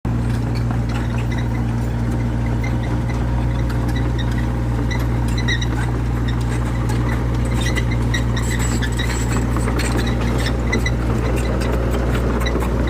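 Diesel engine of a Caterpillar E70B excavator running steadily at an even speed, with faint short high chirps or ticks scattered over it.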